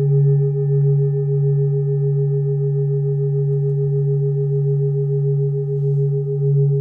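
A singing bowl sounding a steady, sustained hum of several overtones that pulse slowly and evenly throughout, without fading.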